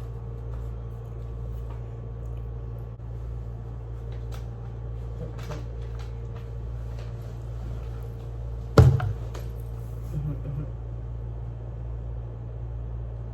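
A single sharp knock about nine seconds in, over a steady low hum and a few faint clicks.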